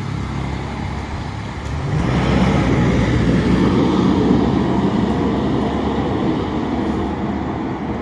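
Street traffic, with a pickup truck driving past close by: its noise swells about two seconds in, is loudest around four seconds, then slowly fades away.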